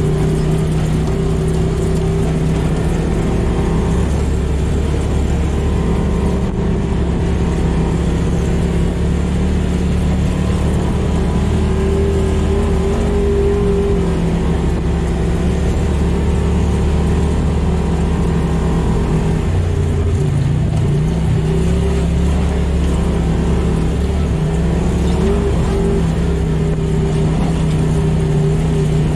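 Polaris RZR side-by-side's twin-cylinder engine running steadily at trail speed, heard on board, with a brief dip and recovery in pitch about twenty seconds in.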